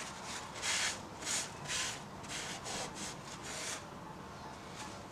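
Hand-operated vacuum brake-bleeder pump being worked, a run of about eight short hissing strokes over roughly three seconds that stop near the end, pulling brake fluid through the line.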